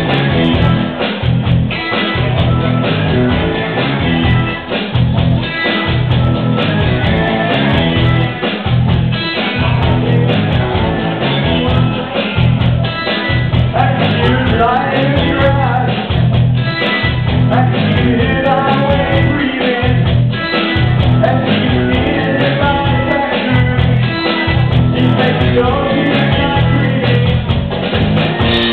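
Live rock band playing electric guitars over a steady beat, with vocals at the microphone.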